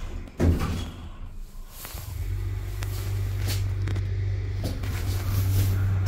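Lift car doors shutting with a thump about half a second in, then the lift's drive starting up about two seconds in: a steady low hum that grows slightly louder as the car gets under way.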